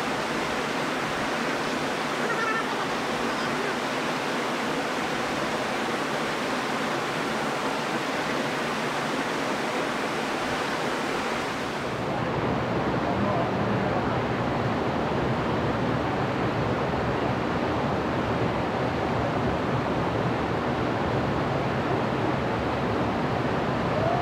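Steady rushing of a creek spilling over a small rocky fall. About halfway through the sound changes abruptly to a duller, deeper rush.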